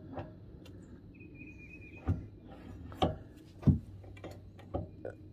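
A handful of light knocks and clicks as a brass pressure-washer pump is handled and shifted against the engine while it is lined up on the shaft, the strongest about two-thirds of the way in.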